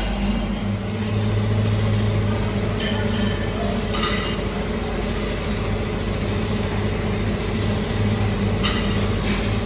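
Spray booth running with a steady low mechanical drone, with short hisses of air from the hand-held spray gun a few times as bicycle handlebars are coated.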